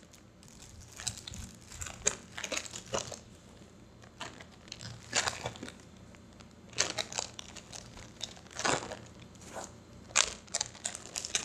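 Clear plastic packaging crinkling as it is handled by hand, in irregular bursts of crackles with short pauses between them.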